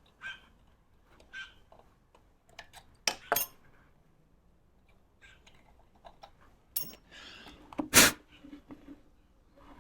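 Hand tools and small metal parts being handled on a workbench: scattered light clicks, two sharp knocks about three seconds in, and a loud knock near the end.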